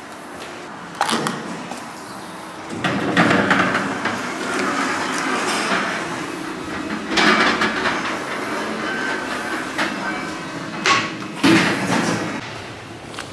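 Lift (elevator) doors sliding and the lift in use. There is a sharp knock about a second in and more knocks near the end.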